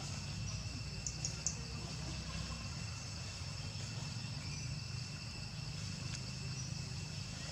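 Steady, high-pitched insect drone over a low rumble, with a few short clicks a little over a second in.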